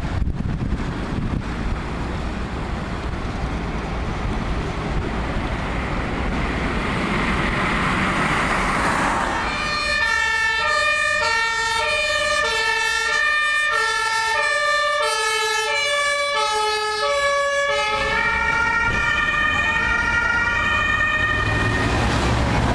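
Traffic noise of a vehicle driving past, then, about ten seconds in, an emergency vehicle's German two-tone siren (Martinshorn) starts: a loud high-low call switching pitch about every two-thirds of a second. It changes a little after about eighteen seconds as the ambulance passes.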